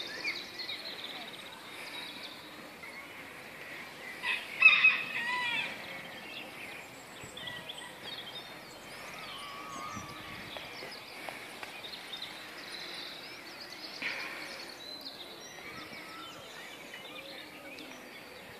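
Birds calling and singing, many short chirps and whistles, with a louder run of calls about four to five seconds in.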